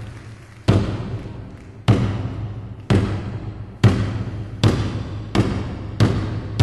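A low, ringing drum struck repeatedly in music, each stroke decaying before the next, the strokes speeding up from about one a second to nearly two a second.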